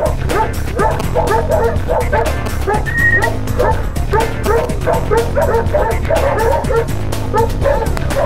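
A dog barking and yipping in quick, closely repeated barks, over background music.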